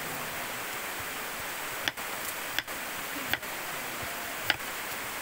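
Steady rush of flowing stream water, with four sharp knocks about a second apart in the second half: a knife chopping on a cutting board.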